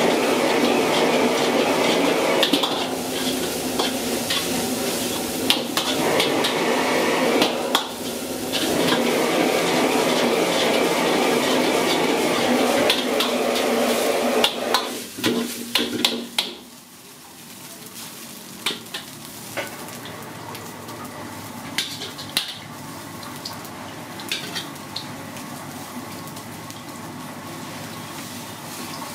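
Fried rice sizzling in a wok as a metal ladle stirs and scrapes it, with frequent clanks of metal on the wok. About sixteen seconds in the sound drops suddenly to a much quieter background with only an occasional clink.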